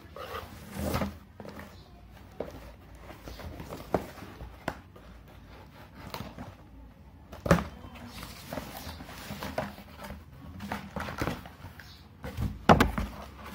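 Cardboard shipping box being opened by hand: a small metal tool slitting the packing tape, then the flaps being pulled open and the box handled, with scrapes, rustles and scattered knocks. Two louder knocks, about halfway and near the end.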